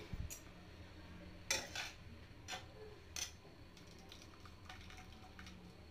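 A metal utensil knocking and clinking a few times against a steel pot while boiled spinach leaves are moved into cold water, over a low steady hum.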